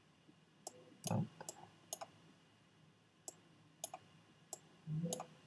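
Scattered computer mouse clicks, about six over a few seconds, heard while a slider in a dialog is being worked. A short low sound comes about a second in and again near the end.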